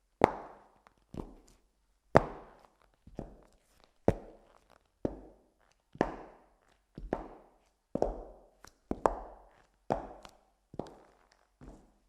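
High-heeled shoes walking at a slow, even pace on a hard floor: sharp heel clicks about once a second, each with a short echo.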